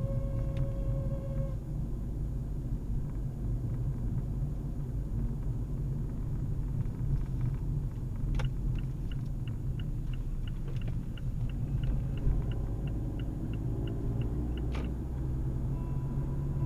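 Car interior rumble while driving, steady throughout. A steady mid-pitched tone cuts off about a second and a half in. Midway, a click starts a run of light, even ticks, about three a second, for some six seconds, ending with another click.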